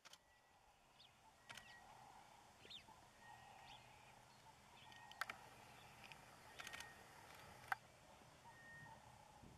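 Faint bush ambience: a few short, high bird chirps and whistles, and several sharp clicks, some in quick pairs.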